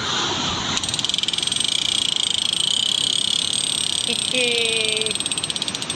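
The drag of a big conventional shore-fishing reel buzzing in a fast, even run of clicks as a hooked fish pulls line off against the bent rod.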